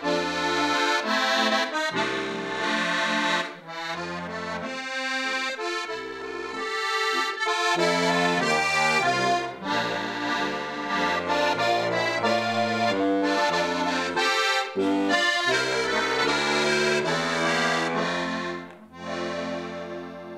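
Diatonic button accordion (Slovenian frajtonarica) playing a lively folk tune, with melody chords over pumping bass notes. Near the end the playing stops on a held final chord that fades out.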